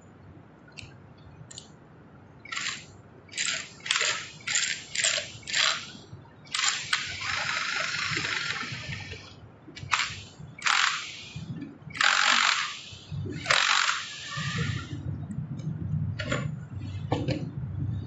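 Cordless 20V power driver working on the top of an e-scooter's fork steerer tube (the headset fitting), run in a string of short bursts, then held for about three seconds, then more short bursts. A lower rumbling of parts being handled follows near the end.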